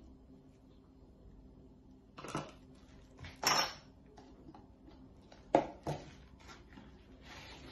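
Kitchen utensils clattering: a few separate clinks and knocks as a spatula is put down on a small metal plate and a plastic tub is handled, the sharpest knock a little past halfway. Near the end comes a soft rustling of hands working floury dough in a wooden bowl.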